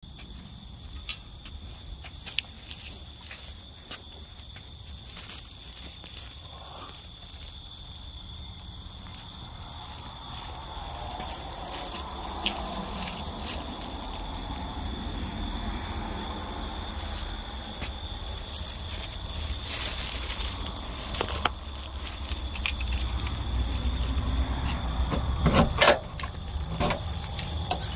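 Crickets chirping steadily, a continuous high-pitched ringing. Near the end come a few sharp clicks as the front door's lever handle is worked.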